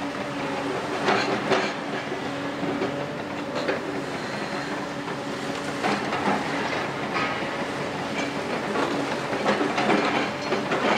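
Doosan DX255LC-5 crawler excavator's six-cylinder diesel engine running steadily while its grab digs into a heap of demolition rubble, with irregular clattering knocks of debris, a few near the start and a cluster near the end.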